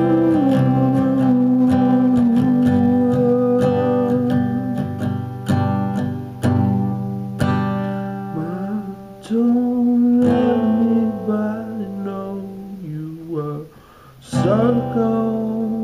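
Acoustic guitar strummed, with a man singing over it in long held notes that slide in pitch; the playing drops off briefly near the end and comes back.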